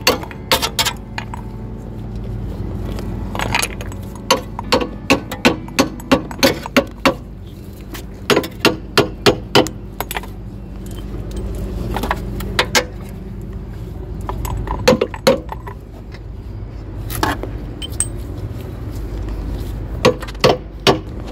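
Metal clicking and tapping of hand tools on a Mercedes-Benz C180 W203's front suspension as the lower control arm is refitted. The clicks come in quick runs of several, about three a second, over a steady low rumble.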